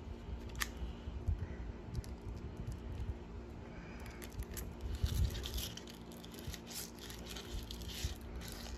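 Knife point being twisted back and forth to bore a hole through a Velcro strap on a wooden board: faint scratching and crinkling, busier in the second half, with a few soft knocks.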